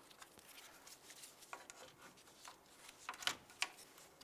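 Small plastic clicks and scrapes as a plastic trim tool pries the base of a plastic push-pin retainer out of its hole, with two sharper clicks a little over three seconds in.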